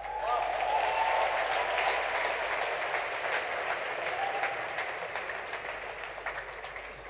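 Large congregation applauding, swelling within the first second and then slowly dying away.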